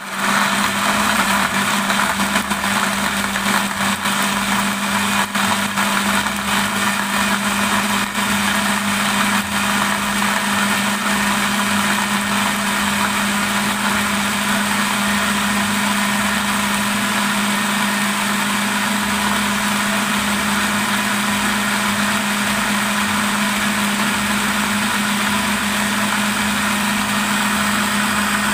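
Electric kitchen blender switching on and running steadily at full speed, grinding large red chilies and tomatoes into a thick paste: a loud, even motor hum over the churning of the jar.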